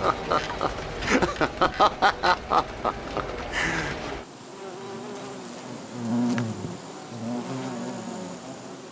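A man laughing in quick bursts over the low rumble of a moving bus; then, after an abrupt cut, bees buzzing, loudest as one passes close about six seconds in.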